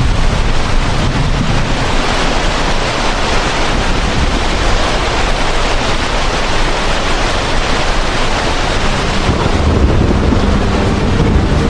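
Loud, steady rushing noise spread evenly from low to high pitches, with music coming in underneath near the end.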